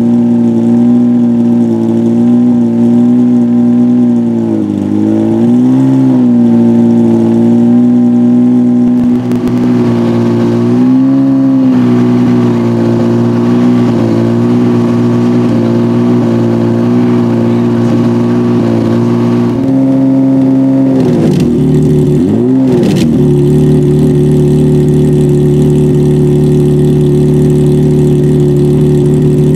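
Alfa Romeo 3.0-litre 24-valve V6 of a Lucchini CN4 EVO prototype running at a steady fast idle of about 2,500 rpm while warming up, coolant still at 53°C. A few short throttle blips briefly swing the pitch, and near the end it settles to a lower, steady idle.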